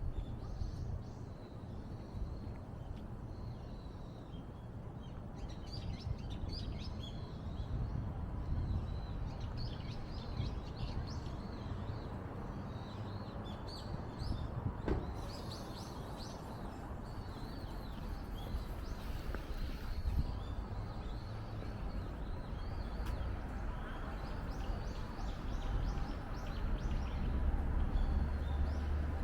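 Small birds chirping over and over, short high calls scattered throughout, over a steady low rumble of city background noise.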